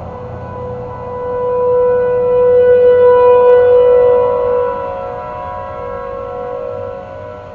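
Several outdoor warning sirens (ASC T-128s, Federal Signal Thunderbolt 1000ATs and 2T22Bs) sound a steady Alert tone together during a monthly test. The combined wail swells loud from about two seconds in and eases back by about five seconds as a rotating siren's horn sweeps toward the recorder and past it.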